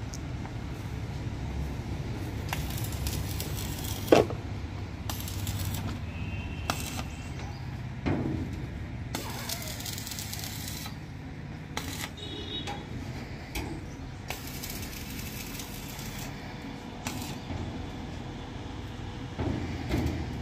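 Stick (arc) welding on a steel gate frame: the arc crackles and sizzles in a series of short runs, each a second or two long. A sharp metallic knock comes about four seconds in, over a steady low hum.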